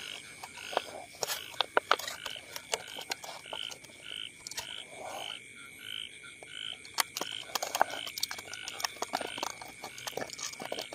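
Frogs calling, a short note repeating about twice a second, over a steady high-pitched insect drone. Scattered sharp clicks and crackles from a plastic bottle being handled.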